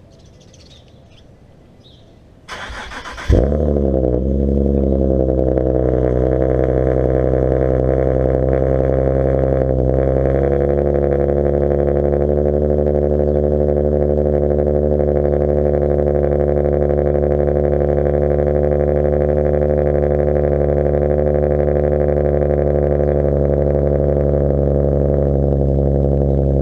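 Nissan sports car's engine cold-started through its dual exhaust: the starter cranks briefly about three seconds in, the engine catches with a loud flare, then settles into a steady fast cold idle that eases down slightly about ten seconds in.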